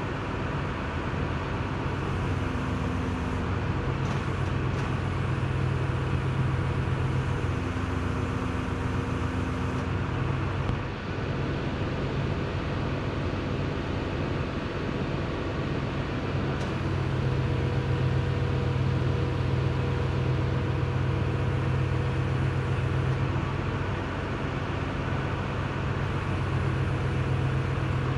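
Truck engine running steadily, a constant low hum with a slight swell in level partway through.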